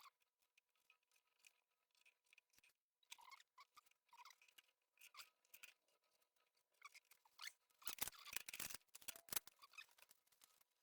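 Faint clicks, taps and scraping of small parts being handled during panel assembly, sparse at first and busiest about eight seconds in.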